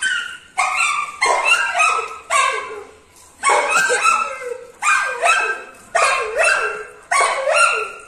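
Yellow Labrador retriever puppy barking over and over: about a dozen high-pitched barks in quick succession, often two close together.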